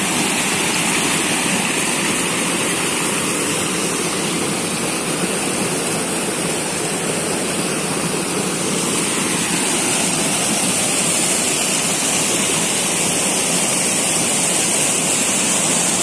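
Mountain stream rushing over rocks and small cascades: a steady rush of white water.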